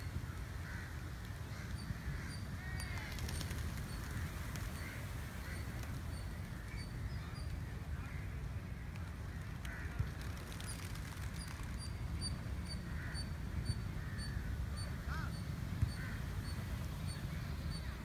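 A flock of birds calling over the beach, with short crow-like caws scattered through a steady low rumble of wind and sea. A high, thin chirp repeats about three times a second near the start and again through the second half.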